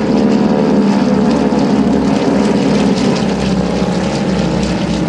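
Four T-6 Texan trainers flying past in formation, their Pratt & Whitney R-1340 Wasp nine-cylinder radial engines of about 600 horsepower each giving a loud, steady, rasping engine note. The pitch drops slightly over the first second or two as they pass.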